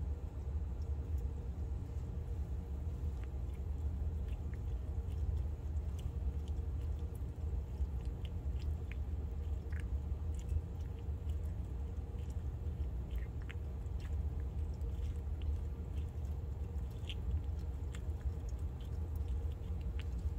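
A blue-tongued skink eating a cracked raw quail egg from a dish: scattered small clicks and crunches of its jaws on shell and yolk, over a steady low hum.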